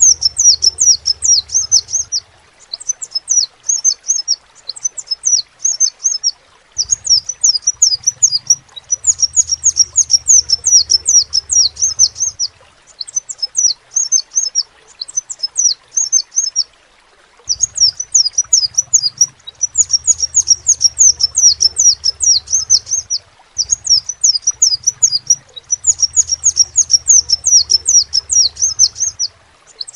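Crimson sunbird (kolibri sepah raja) singing: fast runs of high, thin, sharply falling chirps in phrases of two to three seconds with short breaks between.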